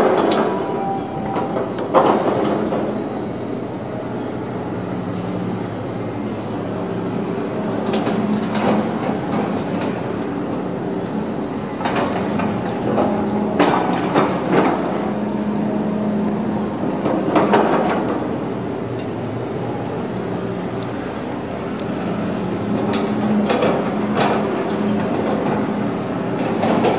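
Crawler crane's engine running steadily, with sharp metallic clanks from heavy steel plates being handled scattered through: the loudest come right at the start and about two seconds in, and more follow later.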